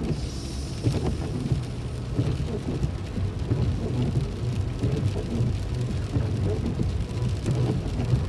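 Car cabin noise while driving on a rain-soaked road: a steady low rumble of engine and tyres with the hiss of wet pavement and rain on the car.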